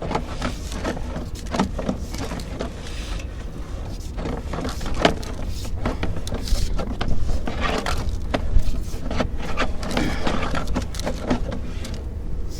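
Sewer inspection camera push cable rattling and knocking as it is fed up a cast iron drain line, with many irregular clicks over a steady low hum.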